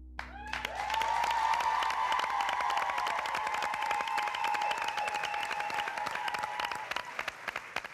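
Audience applauding and cheering, dense clapping with high held cheers over it, starting about half a second in and thinning out near the end.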